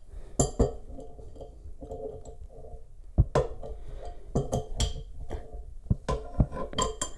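Pliers on the chrome T-valve and bidet hose nut during tightening: an irregular string of sharp metallic clicks and clinks, some with a short ring, coming thicker from about halfway through.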